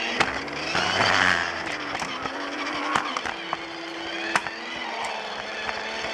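Battery-powered Lego Duplo toy train running along its plastic track: a steady small-motor whine and wheel rattle, with a sharp click about once a second.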